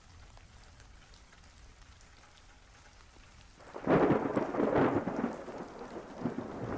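Thunderstorm: faint rain, then about four seconds in a peal of thunder breaks in loudly and keeps rumbling.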